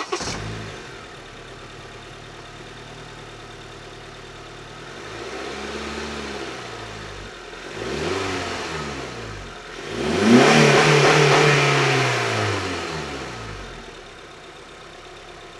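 A 2015 Honda Civic Si's 2.4-litre four-cylinder engine, fitted with an HPS cold air intake, starts right at the beginning and idles. It is then revved three times, each rev rising and falling in pitch, the third the loudest and longest, before it drops back to idle. The intake note is deep.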